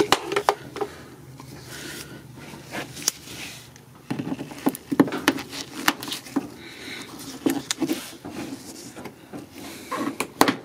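Irregular clicks, knocks and scraping of hand tools and plastic trim as a hidden fastener is worked loose on a car's plastic bumper cover.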